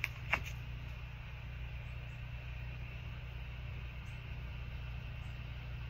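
Steady low hum throughout, with a couple of light clicks near the start from tarot cards being handled.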